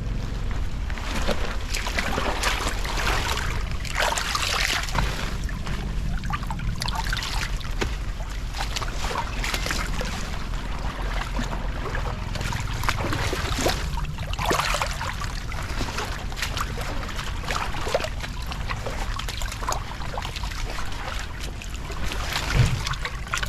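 Floodwater draining into an unclogged culvert, rushing and splashing unevenly over a steady low rumble.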